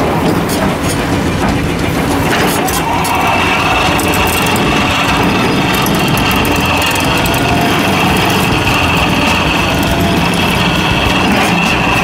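Excavator-mounted Xcentric Ripper JGXR 40, a hydraulically driven eccentric vibrating ripper, working into limestone: a steady loud mechanical drone of the machine under load with a high whine, mixed with crunching and scraping of breaking rock.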